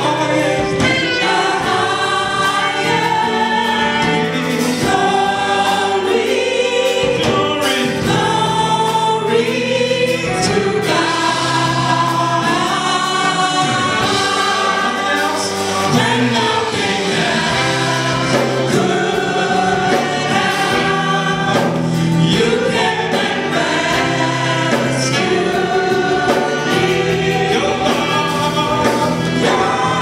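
Gospel choir singing, led by a male singer on a microphone.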